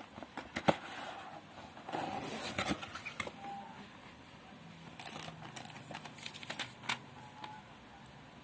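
Packaging being handled: crinkling and rustling with a few sharp clicks and taps, the busiest rustling about two seconds in.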